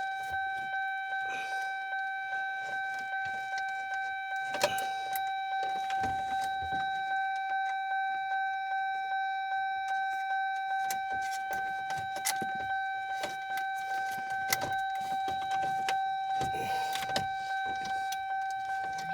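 GM truck's key-in-ignition warning chime dinging steadily, about two chimes a second, with scattered clicks and knocks over it.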